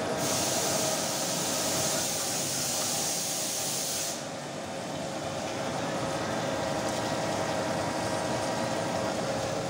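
Milling cutter on a CNC milling machine cutting a metal part under flood coolant: a steady machining noise with a constant whine. A loud high hiss sits over it for about the first four seconds and then stops suddenly.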